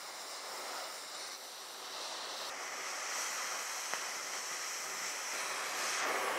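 Cutting torch flame hissing steadily as it melts a seized bearing race off a windmill compressor's crankshaft.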